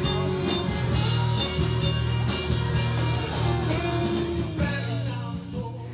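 Rock music with guitar and drums, growing quieter near the end.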